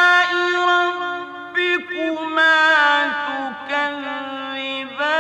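Male Qur'an reciter chanting in the ornate mujawwad style. A long held note moves into ornamented melismatic turns, the pitch gliding up and down between short breaks.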